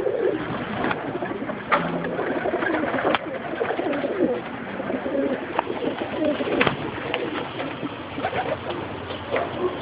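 Many domestic pigeons cooing together at once, a continuous overlapping murmur, with a few sharp knocks now and then.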